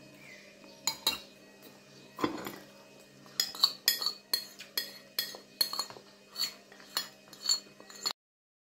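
Metal spoon clicking and scraping against a plastic bowl as rice is scooped up. Scattered clicks at first, then a run of about two clicks a second, ending in an abrupt cut-off near the end.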